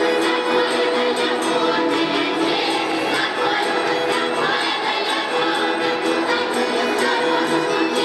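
Folk ensemble singing a Russian traditional song in chorus, with a steady beat of about three strokes a second.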